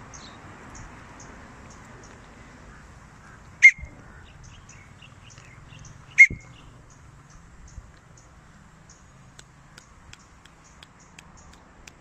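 Pet African lovebird calling from a tree: two short, shrill calls about two and a half seconds apart, over faint high chirping.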